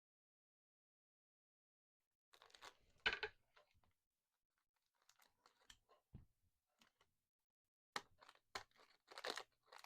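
Faint crinkling and rustling of a trading-card pack and its cards being handled, starting about two seconds in, with a few sharp clicks and a louder rustle near the end.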